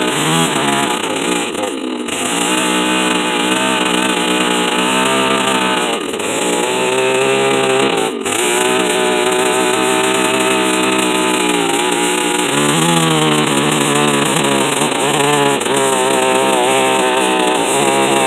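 Farmertec 660 chainsaw, a clone of a big two-stroke saw, ripping red oak lengthwise with a small-cutter chain: the engine runs under steady load, its pitch wavering as it bogs and picks up, with a few brief dips.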